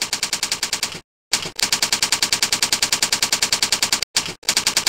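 Typing sound effect: rapid, evenly spaced clicks, about ten a second, with two short breaks, one about a second in and one near the end.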